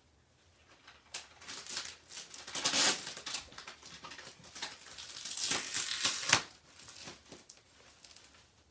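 Plastic wrapper layers of an LOL Surprise ball crinkling and tearing as they are peeled off by hand, loudest about three seconds in and again around six seconds.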